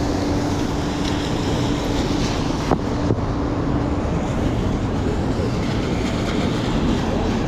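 Rainy city street noise: a steady wash of rain and traffic, with a steady hum that stops about four seconds in and two sharp clicks close together near the middle.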